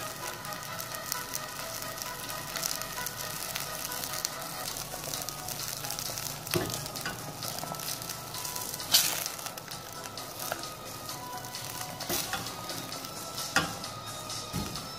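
Chicken livers and gizzards at a rolling boil in a stainless steel pot, the water bubbling and crackling steadily while a silicone spatula stirs them. A few sharp knocks against the pot, the loudest about nine seconds in.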